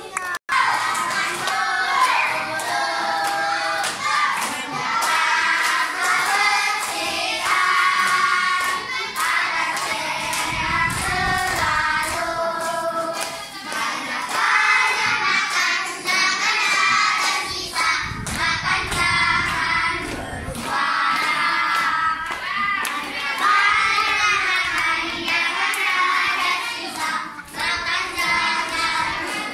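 A group of young children singing a song together in unison, clapping their hands along.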